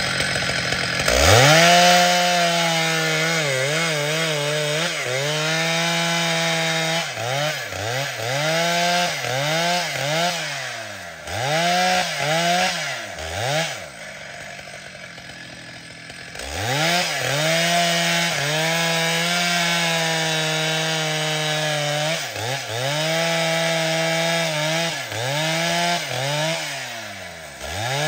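Large professional two-stroke chainsaw cutting trembesi wood: it revs up to full throttle about a second in, then repeatedly dips and picks up again in quick pulls. Midway it eases down for about two seconds, then goes back to full throttle and dips repeatedly again near the end.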